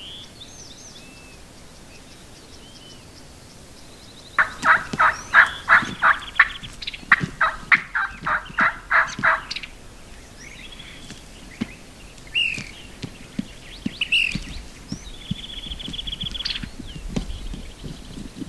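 Turkey calling: two loud series of short, rasping notes at about four a second, each lasting around two seconds, a few seconds in. Small songbirds chirp and trill faintly around them.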